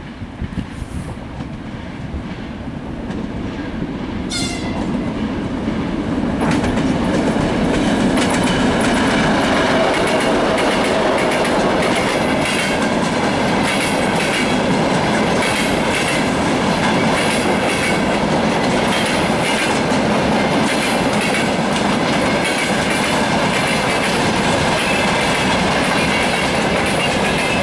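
2M62U diesel locomotive approaching with a freight train, its engine rumble growing louder, with a brief high horn blast about four seconds in. From about six seconds the loaded freight wagons roll past close by, a steady loud clickety-clack of wheels over the rail joints.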